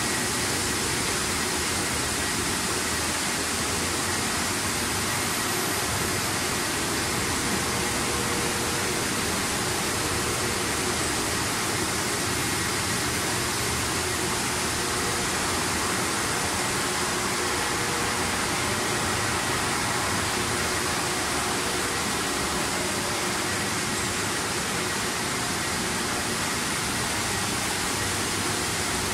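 A french-fry production line running: a steady, even rushing machine noise with faint constant hum tones and no change in level.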